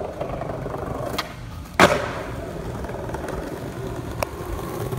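Skateboard rolling on concrete paving. About a second in the tail pops with a sharp click, the rolling noise drops away briefly while the board is in the air, and about half a second later the board lands with a loud clack. Rolling resumes, with another sharp click near the end.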